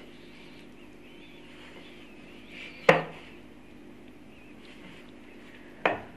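Two sharp knocks about three seconds apart from a glass mixing bowl as dough is worked by hand in it, over a faint steady hum.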